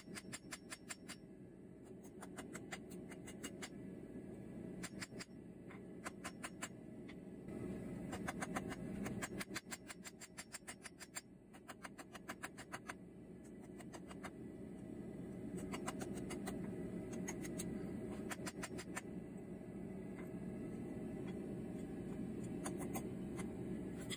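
A blacksmith's hand hammer striking on the anvil in quick runs of light, ringing blows, with short pauses between the runs, over a steady low hum.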